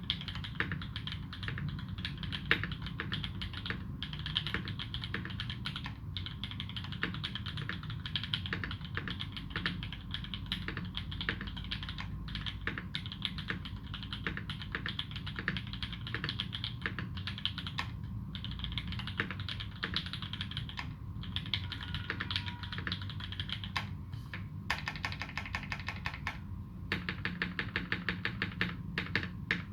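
Continuous typing on a custom 60% mechanical keyboard with modded, lubed Alpaca v2 linear switches under GMK Dolch doubleshot keycaps, with tuned Cherry screw-in stabilizers. It is a dense stream of soft clacks, and near the end it turns into an even run of keystrokes at about five a second.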